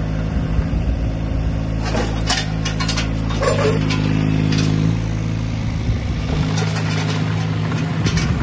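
Yanmar VIO12 mini excavator's diesel engine running steadily while the machine works its hydraulics and slews round, with clanks and rattles from the machine at intervals.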